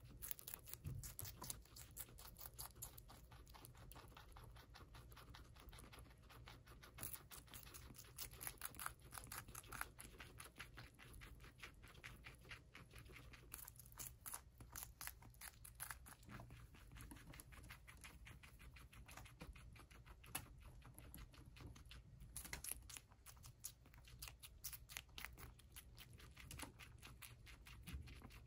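Guinea pigs chewing diced raw red and yellow bell pepper: quiet, crisp crunching in quick runs of clicks, with short pauses between bites.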